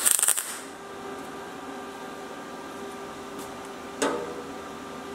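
A MIG welder's arc crackles for well under a second as a single tack weld is struck on thin sheet-steel car-body panel. About four seconds in comes a single short metallic knock, over a steady hum.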